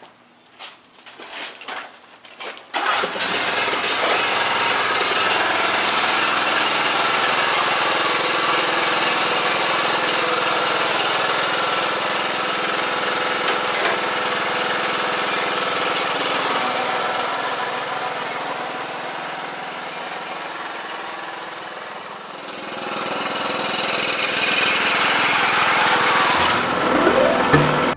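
A few clicks and knocks, then a small engine starts suddenly about three seconds in and runs steadily. Its level sinks somewhat in the later part and rises again a few seconds before the end.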